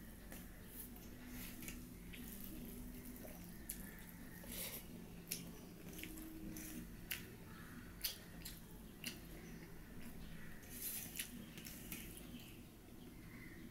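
Quiet, wet eating sounds of a person eating rice and vegetable curry by hand: lip smacks and chewing, with fingers squishing and mixing the rice on a steel plate. The sound comes as many short, sharp clicks at irregular intervals.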